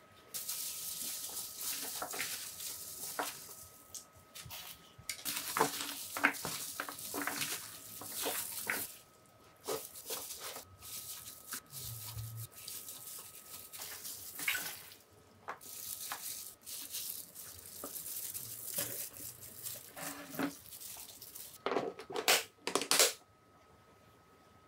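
Wet, squishy rustling of seasoned young radish greens being mixed and packed by gloved hand in plastic containers, with scattered small clicks. Near the end come a few sharp plastic clicks as the storage container's lid snaps shut.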